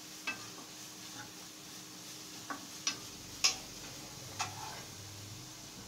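A steel spoon stirring frying onion masala in a nonstick kadhai, clicking and scraping against the pan five times over a faint, steady sizzle. The loudest knock comes about three and a half seconds in.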